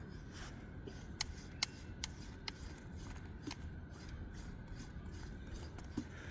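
A few scattered light clicks of hand tools on metal, irregular and spaced a fraction of a second to a second apart, over a faint steady background.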